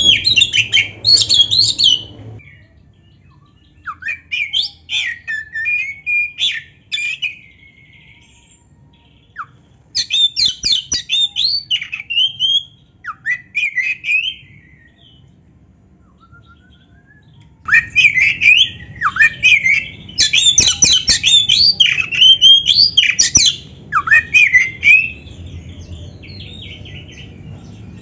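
Kacer (magpie-robin) singing in bouts of varied loud whistles, quick trills and harsh chattering notes. The bouts are separated by pauses of a few seconds, and the longest bout comes in the second half.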